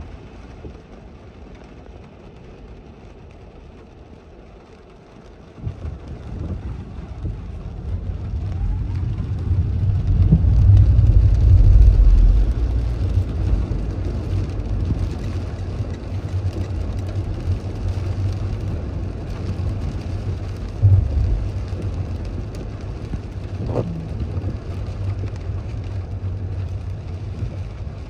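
Car driving on rain-wet city streets, heard from inside the cabin as a low road and engine rumble. Quiet at first, it builds from about six seconds in, is loudest around ten to twelve seconds, then runs steadily.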